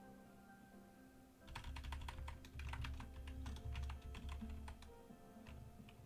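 Computer keyboard typing in quick runs of keystrokes, starting about a second and a half in, over quiet background music with held notes.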